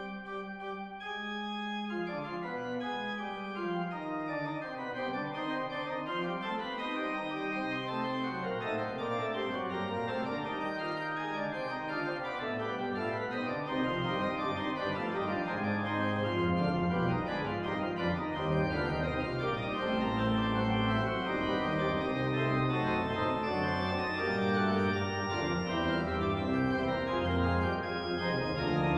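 Organ playing a slow, sustained chordal piece as the closing voluntary after the dismissal. Deep bass notes come in more strongly about halfway through, and it grows a little louder.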